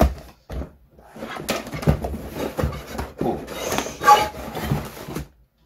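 Cardboard box flaps and plastic packing wrap being handled as the box is unpacked: irregular rustling and scraping with a few light knocks, stopping near the end.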